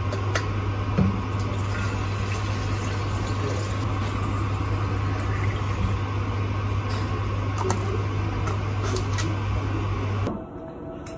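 Water from an office pantry dispenser tap running into a plastic water bottle, over a steady low hum, with a few light clicks of the bottle being handled. The hum and running sound stop abruptly near the end.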